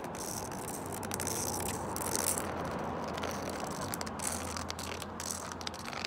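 A white cane's roller tip rolling and rattling along pavement, a steady scraping run broken by many small sharp clicks, with the footsteps of the person walking.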